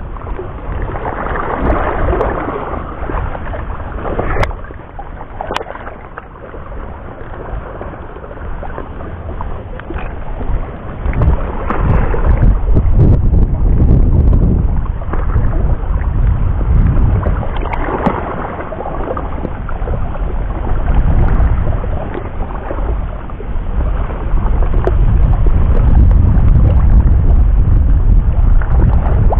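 Wind buffeting the microphone with a heavy low rumble, over small waves lapping at shore rocks; the rumble grows stronger about halfway through and again near the end. Two sharp clicks come about four and five seconds in.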